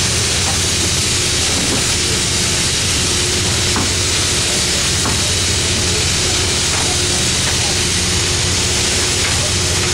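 Steady machinery drone with a constant hiss, unchanging throughout, with a few faint knocks.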